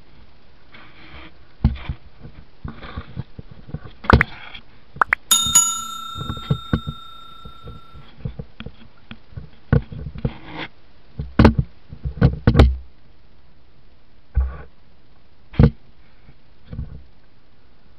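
A series of knocks and clunks as diving gear is handled against a small wooden outrigger boat. About five seconds in, one sharp metallic clang rings on for over two seconds.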